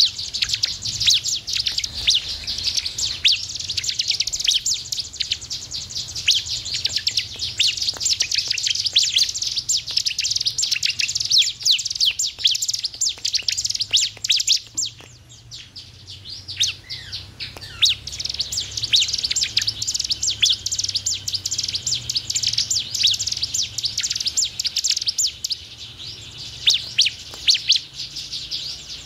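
Bar-winged prinia (ciblek) singing: a fast, continuous run of sharp, high chirps, easing off briefly about halfway through before picking up again.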